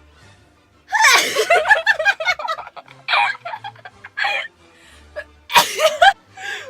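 A young woman sneezing with her nose pinched shut: loud, strained, high-pitched sneeze sounds, the first about a second in and drawn out, a sharper one near the end, with short vocal bursts between them.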